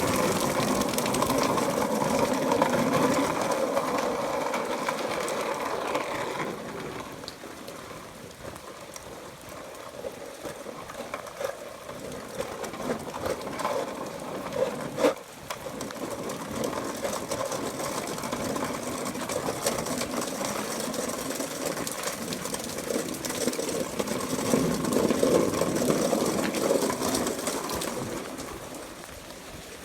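Small motor of a ride-on vehicle whirring as it drives away, fading in the middle and growing louder again near the end as it comes back around.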